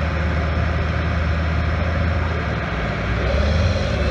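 Big tractor diesel engines of a K-700 and a John Deere 8420 running hard under load as they pull against each other, a steady deep drone. About three seconds in the engine note rises and gets a little louder as the K-700 throttles up, putting out black smoke.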